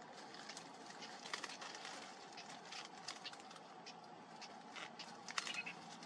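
Cinnamon bittern chicks giving short begging calls as the parent comes to feed them, over irregular faint rustling of the dry reed nest. The loudest burst of calls comes about five seconds in.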